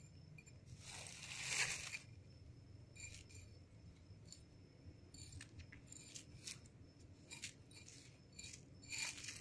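Fingers poking and scratching at loose sand among dry leaves. A faint scraping rustle swells about a second in, then scattered small clicks and ticks follow, coming more often near the end.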